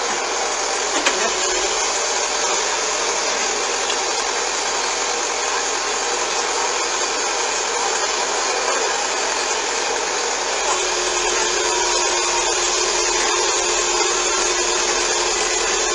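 A steady, even rushing hiss of machinery or escaping air with no rhythm, joined by a faint steady tone about two-thirds of the way through.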